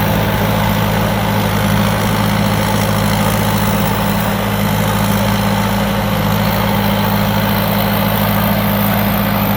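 Thai Seng Super Jiw combine harvester's four-cylinder turbo engine and threshing machinery running steadily at constant speed while harvesting rice.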